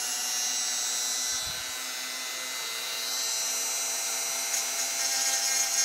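Dremel rotary tool running at its lowest speed setting, a steady high motor whine, its pink grinding stone grinding the plastic of a lower denture. The grinding grows louder and grittier from about three seconds in as the stone bears on the denture.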